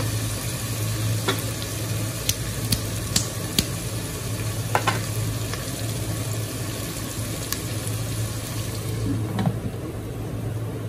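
Taro root masala sizzling in an open pressure cooker pot while a wooden spatula stirs it, with a few sharp clicks of the spatula against the pot. About nine seconds in a glass lid goes on and the sizzle becomes muffled.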